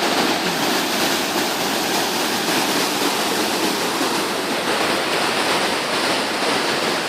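Waterfall: steady, unbroken rush of falling water.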